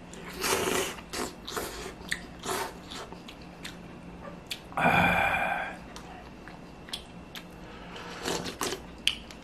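A person slurping instant ramen noodles and chewing, with a short voiced sound about halfway through, then slurping broth from the bowl near the end.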